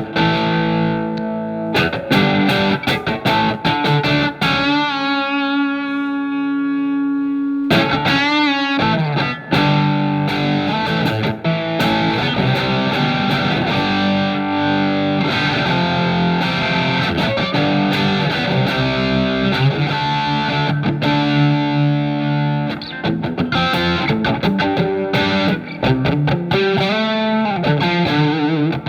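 Fender Telecaster with single-coil alnico pickups played through a Marshall MG15FX amplifier's OD2 overdrive channel: distorted lead lines of picked notes. About five seconds in, one note is held for a few seconds with vibrato, and near the end a note slides upward.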